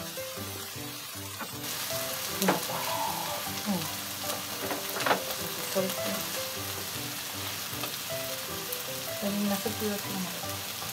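Meat and green peppers frying in olive oil in a pot: a steady sizzle that grows louder about two seconds in, with a few clacks of a utensil stirring.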